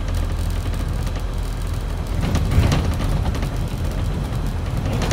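Scania double-decker bus in motion, heard from its upper deck: a steady low diesel engine hum with road and body noise, swelling louder for a moment about halfway through.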